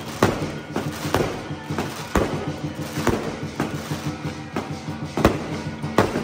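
Aerial firework shells bursting in an irregular series of sharp bangs, about one or two a second, with music playing underneath.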